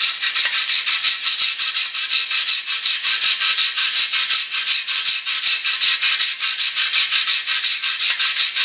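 Wire brush scrubbing rapidly back and forth over rusty motorcycle wheel spokes and rim, about four strokes a second, knocking off loose rust that would otherwise cut into the inner tube. The scrubbing stops near the end.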